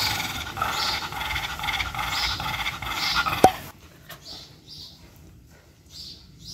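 Shih Tzu panting and sniffing in short puffs, softer after about three and a half seconds in. A short pop with a quickly dropping pitch cuts in at that point.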